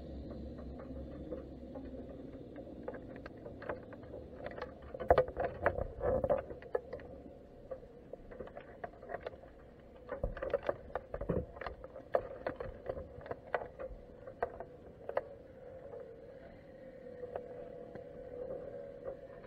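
Underwater clicking and knocking picked up by a camera inside a crab pot on the sea floor, in irregular clusters about five seconds in and again from about ten seconds in, over a steady low hum.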